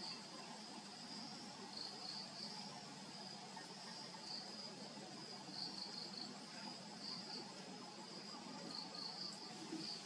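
Insects trilling steadily in one high, even band, brightening into short louder pulses every second or two.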